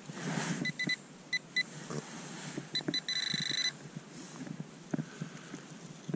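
Handheld metal-detecting pinpointer beeping as it is passed over a clump of dug soil. It gives several short beeps, then a held tone for under a second about three seconds in, the sign that it is right over a metal target. Soil crumbles and rustles between the beeps.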